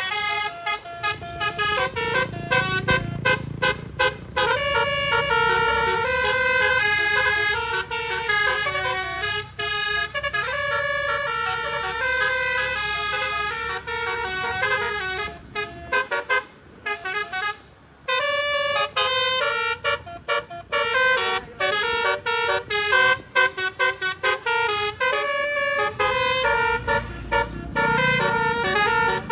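A tour bus's telolet horn playing quick melodic runs of short, stepped notes, pausing once about two-thirds of the way through, over the low rumble of the bus engine.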